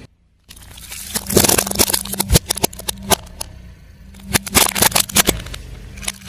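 A car tyre rolling over and crushing brittle objects: two bursts of loud crackling and snapping, with one sharp crack about two and a half seconds in, over the car's engine running steadily. The sound cuts in after a brief dropout at the start.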